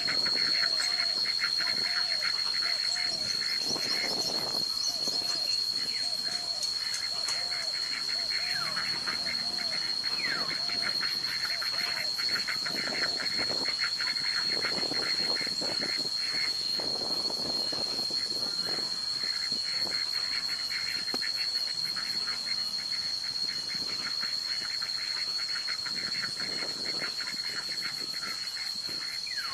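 Outdoor marsh ambience: a steady high-pitched whine over dense, fast chirring. During the first eight seconds or so, a short call repeats about twice a second.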